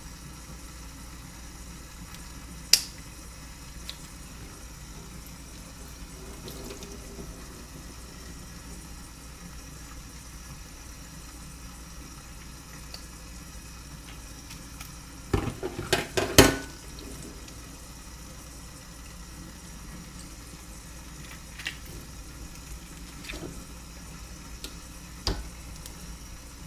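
Kitchen sink with water running steadily from the tap while fish are gutted, with scattered sharp clicks and a cluster of loud knocks about two-thirds of the way through as the fish and utensils are handled in the sink.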